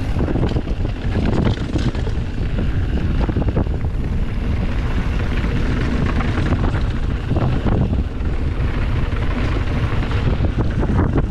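Wind rushing over a helmet- or body-mounted action camera's microphone as a mountain bike descends a trail at speed, with the bike clattering and knocking over bumps.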